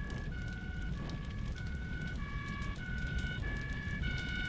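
Two-tone siren alternating between a higher and a lower note about every half second, over a low city rumble.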